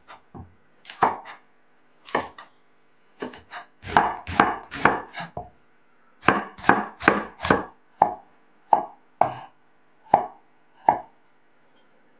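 Chef's knife chopping carrots and then slicing a red onion on a wooden cutting board: a string of separate sharp knife strikes against the board. The strikes come in quick runs in the middle and thin out to about one a second near the end.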